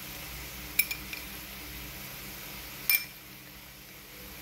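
A metal spoon clinks twice against an aluminium kadai, about a second in and again near three seconds in, each a short ringing clink, over a faint steady hiss.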